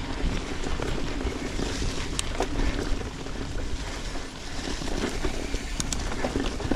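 YT Izzo mountain bike rolling fast over dirt trail: steady tyre and wind rush on the microphone with low rumble, and a few sharp knocks from the bike over roots or rocks.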